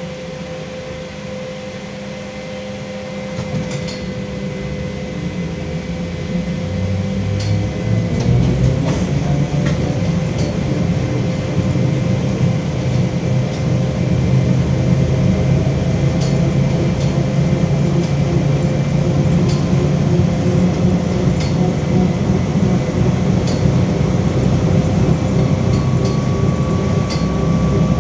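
Inside a LiAZ-5280 trolleybus on the move: the DK-213 traction motor hums with a steady tone over a low road rumble. The sound grows louder over the first several seconds, with a brief rising whine about eight seconds in. Faint clicks sound now and then.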